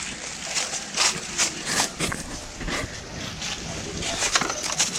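Footsteps crunching and knocking on stones at an uneven pace, over a steady rushing noise.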